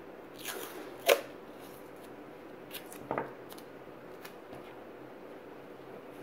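Handling noises as cloth tape is wrapped around a cotton ball on the end of a zip tie: a short rustle of tape, then scattered sharp taps and ticks, the loudest about a second in and another about three seconds in.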